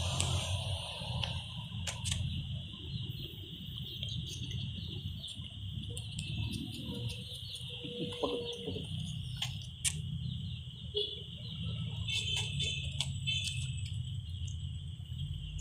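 Steady high-pitched insect drone over a low rumble, with a few scattered clicks.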